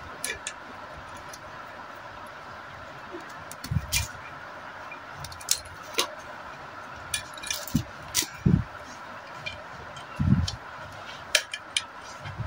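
Scattered light metallic clicks and clinks of pliers and a small lever spring against an L28 diesel engine's cast tappet cover, with a few dull thumps as the cover is moved and turned over on the bench.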